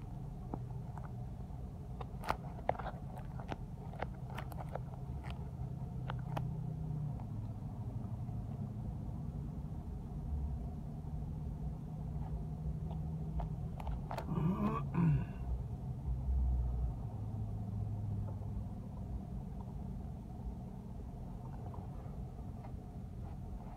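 Steady low rumble of a car's engine and tyres, heard from inside the cabin while driving slowly. A few sharp clicks come in the first several seconds, then a short wavering squeak a little past halfway, followed by a low thump.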